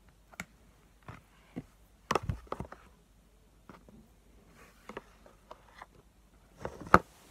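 Scattered light clicks and knocks of handling, with the loudest cluster about two seconds in and another sharp knock near the end. These come from the plastic spoon and doll being worked during feeding and a fleece sleeve brushing the phone.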